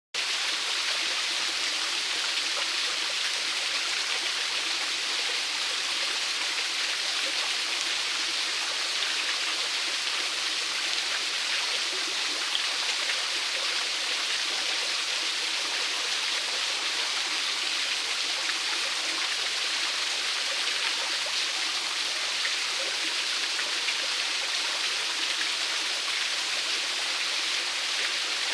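Small waterfall splashing steadily: running water falling and spattering, an even rushing hiss with no lulls.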